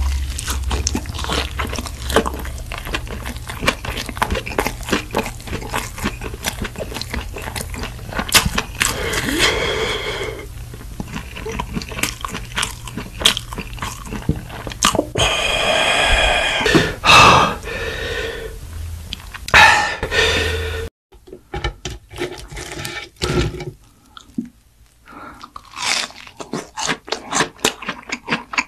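Close-miked crunching and chewing of food: a dense run of crisp bites and chews. About two thirds of the way through it cuts off abruptly, and quieter, more separate crunches follow.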